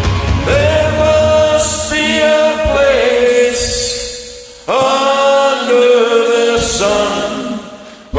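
A man singing long held notes into a microphone over a karaoke backing track, in two long phrases, the second starting sharply about halfway through. The backing's bass drops away a couple of seconds in, leaving the voice almost unaccompanied.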